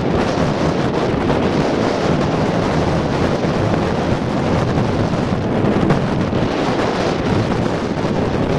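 Strong thunderstorm downburst wind blowing hard against the microphone as a loud, steady rushing roar.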